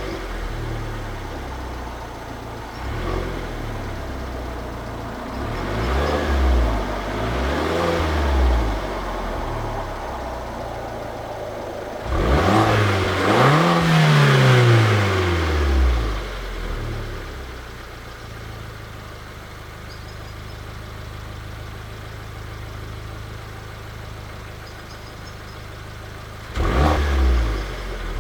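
Alfa Romeo MiTo Quadrifoglio Verde's 1.4 turbo four-cylinder engine, on its stock exhaust, revved in short blips, then once higher with the pitch rising and falling back. It settles to a steady idle for several seconds and is blipped sharply again near the end.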